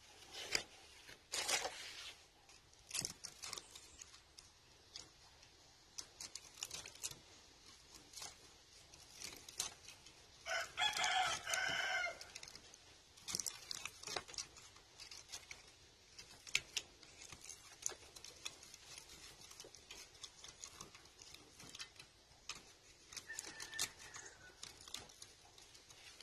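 Pliers clicking and scraping on enamelled copper wire as the old windings are worked out of a pool pump motor's stator, in short irregular clicks throughout. A rooster crows once about ten seconds in, the loudest sound.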